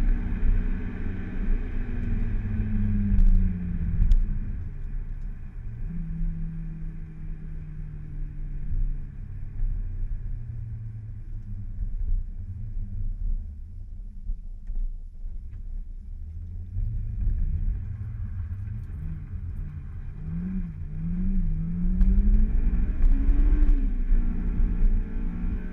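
Honda S2000's four-cylinder engine running through a Supersprint aftermarket exhaust. It first falls in pitch as the revs drop, holds a steady note, eases off, then gives several quick throttle blips and climbs louder in revs near the end.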